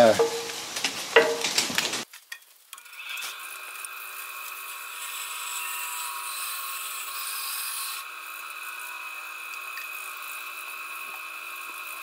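Benchtop bandsaw running steadily, its blade cutting freehand through a small piece of dogwood sapling trunk. The sound starts after a brief gap about two seconds in, and the hiss of the cut drops about eight seconds in as the blade runs free.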